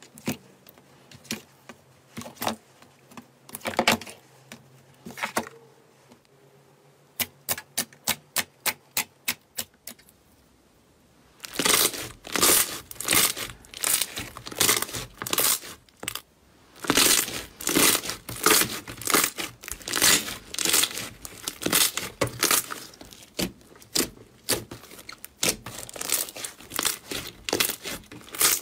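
Slime being handled: sparse wet clicks and pops at first, then a run of quick even clicks. After a brief lull, dense crackling and popping as a large mass of yellow slime is kneaded and stretched by hand.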